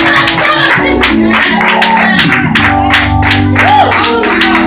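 Live church band music: held chords with a steady drum beat and guitar, playing under a preacher's shouted words.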